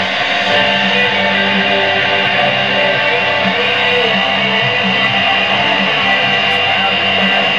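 Music with guitar from an AM broadcast station, playing through the speaker of a 1951 RCA Model A-108 tube radio. The sound shows the AM band working again after new mica capacitors were fitted in its IF transformers.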